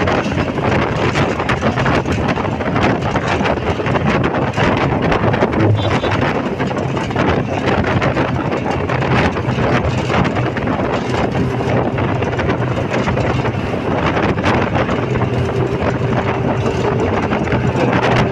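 Wind rushing past a bus moving at highway speed and buffeting the microphone, over the bus's steady road and engine noise with a low hum.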